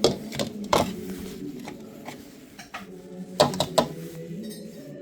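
Sharp clicks and knocks of hard parts and tools being handled during work on a boiler, several in quick bursts, over a steady low hum.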